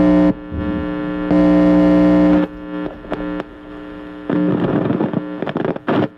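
Loud electric buzz with many overtones that cuts in and out abruptly several times. In the second half it gives way to a rougher, crackling noise.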